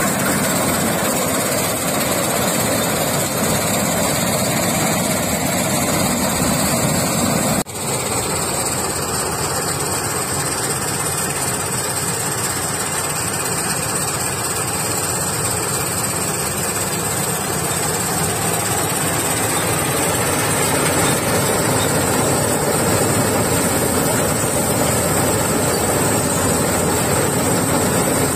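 Malkit 997 combine harvester running steadily, its engine and header working through dry okra stalks. The noise breaks off for an instant about eight seconds in and carries on at the same level, with a steady high whine over it after the break.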